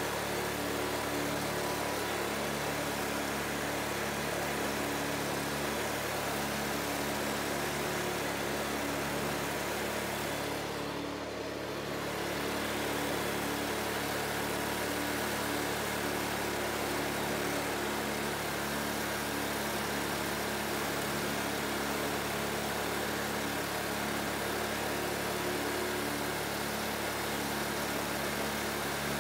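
Whites ride-on lawn mower's engine running at a steady speed as the mower drives over grass, briefly a little quieter about eleven seconds in.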